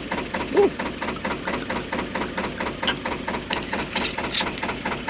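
Narrowboat diesel engine idling, a steady rhythmic knock at about five beats a second.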